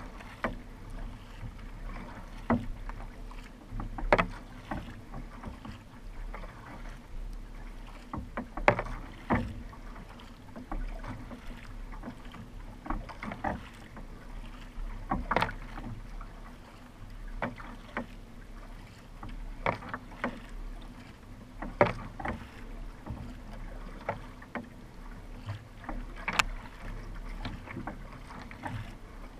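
Kayak being paddled: the paddle blades strike and pull through the water in sharp splashes, roughly one every two seconds, over a steady low rumble.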